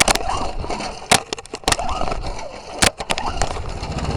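Choked Briggs & Stratton 3 hp flathead lawnmower engine being pull-started: the recoil starter is yanked several times with sharp clacks and uneven cranking noise, and the engine catches into a steady run at the very end.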